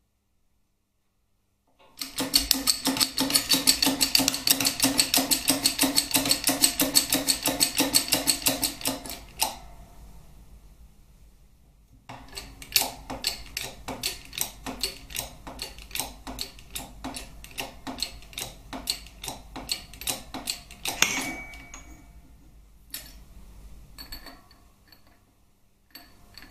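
Shop press working to push a needle-roller cam bearing out of a Harley Twin Cam crankcase: its pump ticks rapidly and evenly for several seconds, pauses, then ticks again. A brief squeal near the end of the second run, then a few scattered ticks as it eases off.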